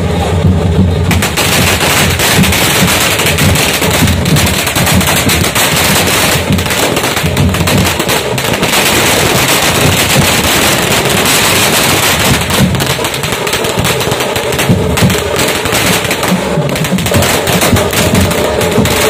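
A string of firecrackers going off in a dense, rapid crackle, starting about a second in, over band music with drums.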